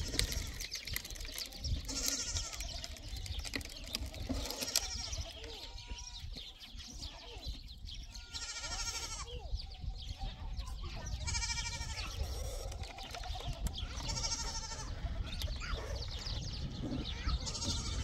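Livestock bleating: six short, quavering calls about every three seconds, over a steady low rumble.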